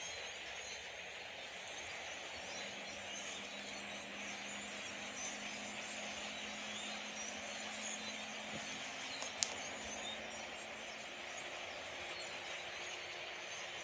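A large flock of birds calling all at once, a dense unbroken chatter of many overlapping chirps. A faint low hum comes in a couple of seconds in and fades out near the end, and there is one sharp click about nine seconds in.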